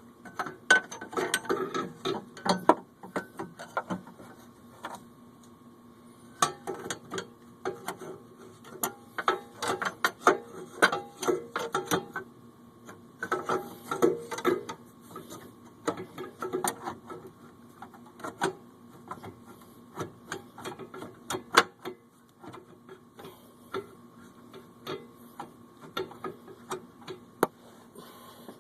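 Irregular runs of sharp metallic clicks and clanks from hand tools and a steel engine mount bracket being worked into place, coming in clusters with short pauses between, over a faint steady hum.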